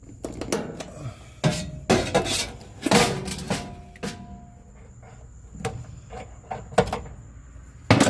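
Sheet-metal dryer parts clanking and banging irregularly as the dryer is pulled apart, some knocks ringing briefly.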